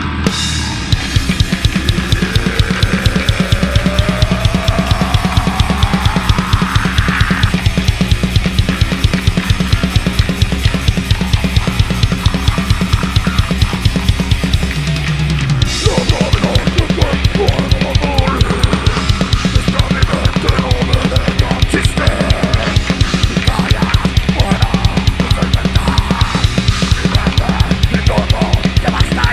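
Metal band playing live, led by fast, even drumming with bass drum, snare and cymbals. A tone glides steadily upward over the first several seconds, and the music changes character about halfway through.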